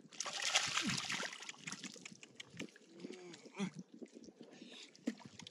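Hands splashing and sloshing in shallow muddy water while grabbing a catfish, loudest in the first second. A few short, low voice-like grunts follow near the middle.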